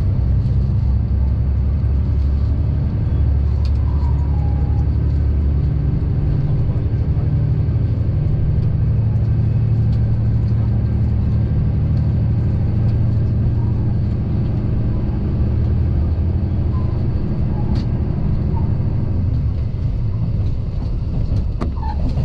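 KiHa 85 diesel railcar on the move, its Cummins diesel engine running with a steady low drone under the rumble of the train, heard from inside the carriage.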